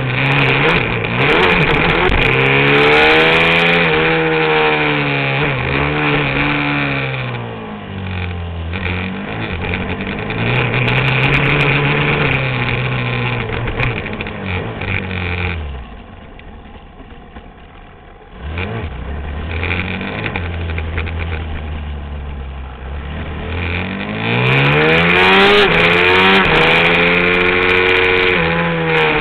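Supermoto motorcycle engine heard from onboard the bike, revving up and dropping in pitch again and again as the rider accelerates and changes gear. About halfway through, the throttle shuts off and the engine goes quiet for about three seconds, then it pulls hard again, loudest near the end.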